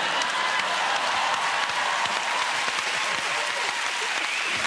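Studio audience applauding steadily, with the guests on the sofa clapping along.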